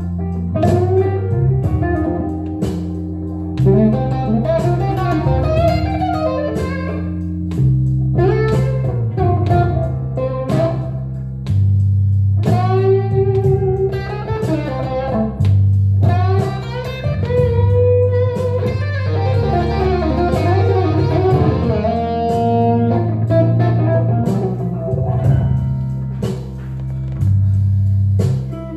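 Telecaster electric guitar playing improvised blues lead lines with string bends, over a low bass line that steps from note to note every second or two.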